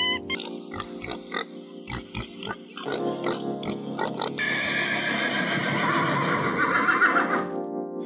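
Piglets squealing over steady background music, starting about halfway through and stopping shortly before the end. Earlier, the music carries a few short clicks.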